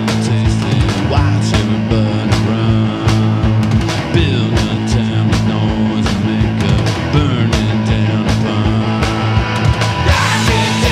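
Indie rock band recording playing: electric guitars, bass and drums with a steady beat.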